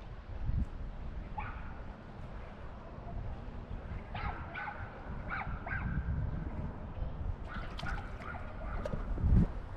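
A series of short animal calls: one, then a quick run of about five a few seconds in, then a few more near the end, over a low steady rumble.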